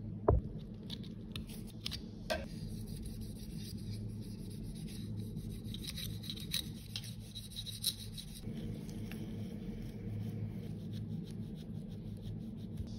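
Cotton and tissue rubbing and scraping against a clear plastic lipstick tube as it is cleaned, with a few sharp plastic clicks, the loudest just after the start, over a steady low hum.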